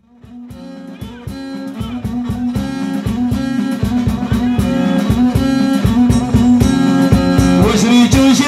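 Moroccan chaabi band music: a violin bowed upright on the knee over drums and keyboard with a steady driving beat, fading in over the first few seconds. A man's voice starts singing near the end.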